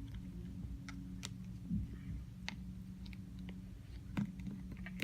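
Scattered sharp clicks of a hard plastic phone case being pried and flexed off an iPhone, a handful spread irregularly over the seconds, over a steady low hum.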